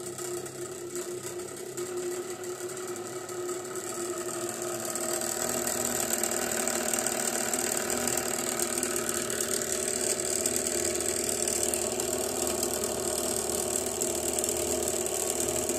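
Electric motor of a laboratory rotor-stator tissue homogenizer running with its rotor spinning in a beaker of vegetable tissue slurry, a steady mechanical hum. It grows louder over the first few seconds as the speed knob is turned up, then holds steady.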